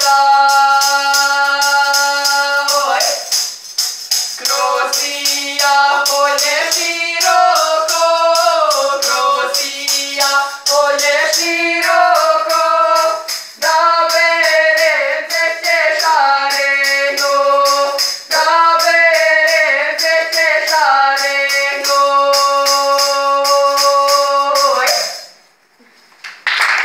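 A woman and a man singing a Prizren highland folk song in long held notes, over a steady tambourine beat. The song ends about 25 seconds in.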